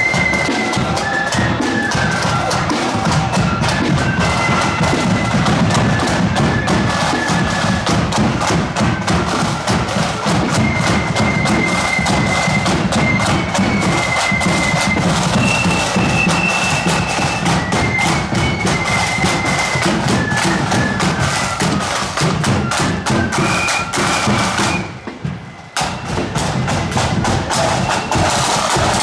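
Marching flute band playing a tune: flutes carrying a high melody over side drums and a bass drum, with a brief break about 25 seconds in.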